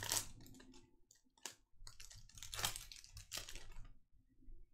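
Foil wrapper of a Panini Contenders football card pack crinkling as it is torn open, then cards flicking and sliding as the stack is thumbed through. The sound comes as a few short rustling bursts: one at the start, one about a second and a half in, and a longer run of them around three seconds in.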